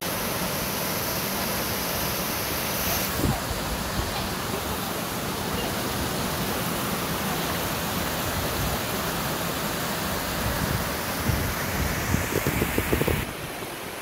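Waterfall water rushing and splashing down over rock slabs, heard close up as a loud, steady rush. A few short bumps come near the end.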